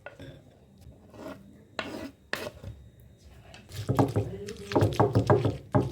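Rasping and rubbing kitchen work: a few scattered scrapes, then a quick run of rubbing strokes near the end.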